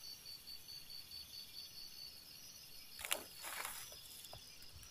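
An insect calling at night: a faint, high, steady pulsing trill of about five pulses a second, with a brief rustle about three seconds in.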